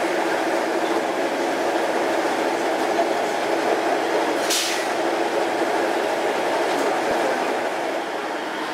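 KiHa 110 series diesel railcar idling while stopped, a steady engine drone. A short, sharp hiss of air cuts in about halfway through.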